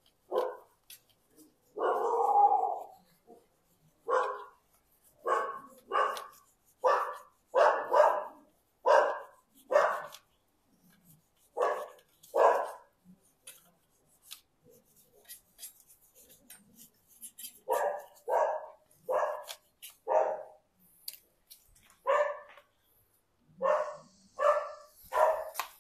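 A dog barking over and over, in bouts of short barks a little under a second apart. There is a longer bark about two seconds in and a pause of a few seconds around the middle.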